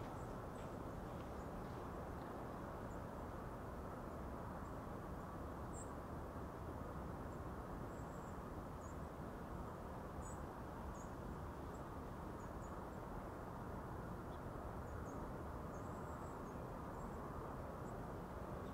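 Quiet open-air ambience: a steady low hiss with faint, short, high-pitched chirps scattered every second or two.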